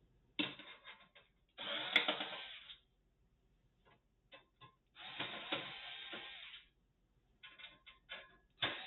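Computer parts and cables being handled inside a PC case: a few separate clicks, then two rattling, scraping stretches about a second long each, with small ticks between.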